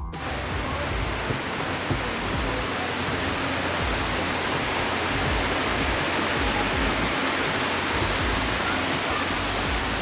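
Waterfall cascading over rocks: a loud, steady rush of water.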